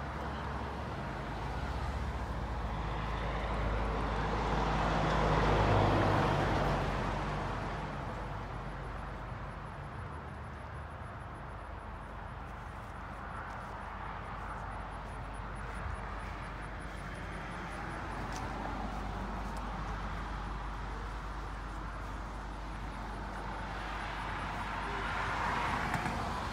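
Cars passing on a road: a swell of tyre and engine noise that rises and fades, loudest about six seconds in, and another near the end.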